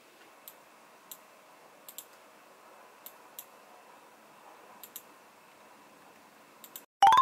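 Scattered keystrokes on a backlit computer keyboard, single taps and pairs about a second apart, over a faint steady hiss. Near the end a short, loud rising tone cuts in and stops abruptly.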